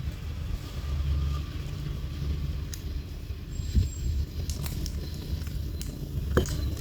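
A few sharp metallic clicks from a vintage brass Zippo lighter being handled, over a steady low background rumble.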